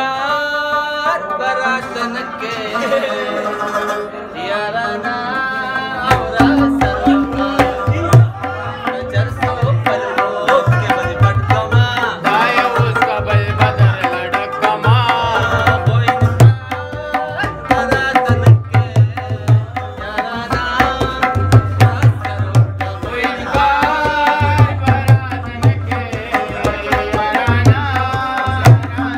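Tabla and rabab playing together: the rabab plucks a melody over quick tabla strokes. Deep bass-drum strokes on the larger tabla come in about six seconds in and keep a rhythm.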